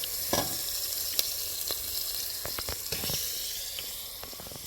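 A steady sizzle, like food frying, with scattered sharp ticks and crackles, slowly fading toward the end.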